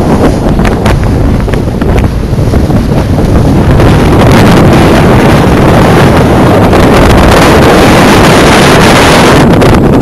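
Strong wind buffeting the microphone aboard a small sailing yacht: a loud, dense rushing that grows louder and steadier about four seconds in.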